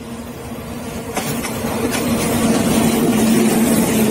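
Diesel locomotive running with a steady hum that grows louder from about a second in, with a few sharp clicks over it.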